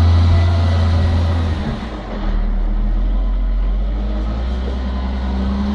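Tractor engine running with a deep, steady hum. It drops to a lower pitch about two seconds in and picks up again near the end, as the engine speed changes.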